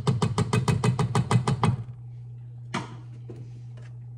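A utensil knocking rapidly against a mixing bowl as batter is mixed by hand, about seven strikes a second for two seconds, then one more knock a second later.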